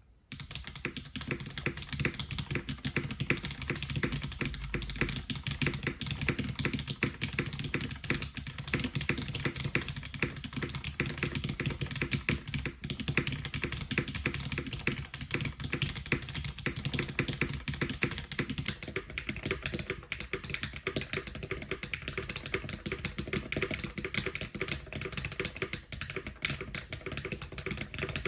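Continuous fast typing on a custom mechanical keyboard with an aluminum plate and lubed Cherry MX Black linear switches: a dense, steady stream of key strokes.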